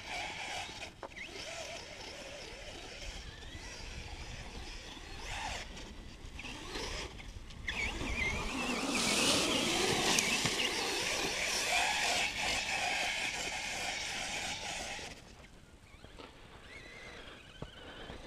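Brushless electric motor and drivetrain of an RC monster truck (HPI Savage Flux with a Castle 1717 motor) whining and wavering in pitch as it is throttled up and down across sand. Loudest as it passes close about ten seconds in, then drops away sharply at around fifteen seconds.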